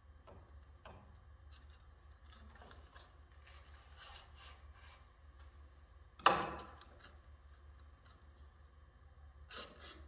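Parts being handled inside a combination machine's shaper during a spindle swap: soft rubbing and scraping, then one sharp knock with a short ringing tail about six seconds in and a smaller knock near the end, over a steady low hum.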